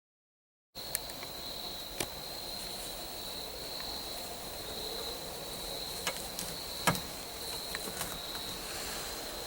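Crickets singing in a steady, unbroken high-pitched chorus, starting abruptly under a second in, with a few sharp clicks, the loudest about seven seconds in.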